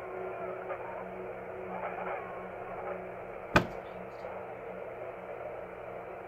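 Baby monitor speaker hissing with static over a steady low hum, with faint indistinct sounds coming through, and one sharp click about three and a half seconds in. The couple suspect the monitor is picking up another baby monitor in their building.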